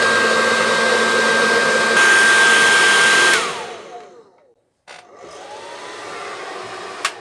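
Hand-held hair dryer blowing on high with a steady high whine, switched off about three and a half seconds in, so the whine falls away as the fan spins down. After a short pause it runs again more quietly and stops with a click near the end. It is being used to heat a doll's vinyl head soft enough to pull off.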